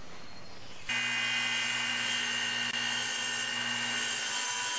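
Table saw running steadily, heard from about a second in, while a timber is fed across the blade to cut the kerfs of a saddle notch; it makes a steady motor hum with a high whine over it.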